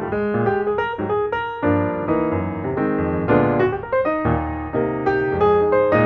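Background piano music: notes and chords struck in a flowing, steady pattern.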